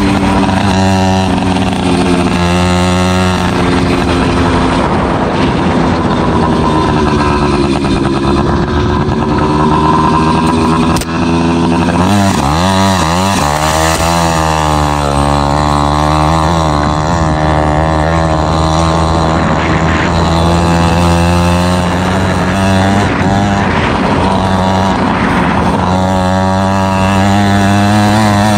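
Race-modified FM-80 two-stroke engine with an expansion-chamber exhaust, on a motorized bicycle, running hard under load. Its revs rise and fall as the throttle and terrain change, with a quick dip and click about 11 seconds in.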